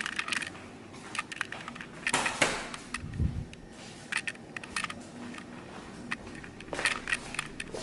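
Scattered sharp clicks of wall light switches being flipped on one after another, with a dull thump about three seconds in.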